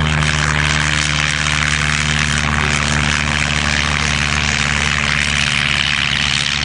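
Historic Avia B.H. propeller monoplane's piston engine running steadily as the plane lifts off and climbs away, a loud, even drone with the hiss of the propeller.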